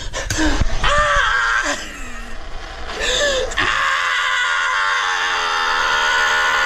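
A person screaming: wavering, drawn-out cries for the first few seconds, then one long, steady held scream.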